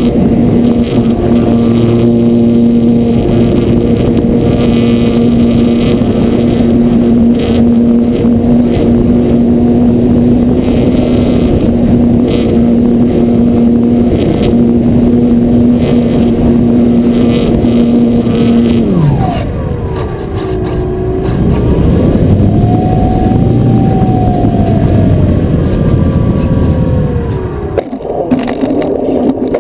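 Electric motor and propeller of an E-flite Apprentice 15e RC airplane, heard from a camera on the plane in flight: a steady whine under heavy wind rush. About two thirds in the whine drops away suddenly, then slides up and down in pitch, and near the end the sound breaks up into rough jolts.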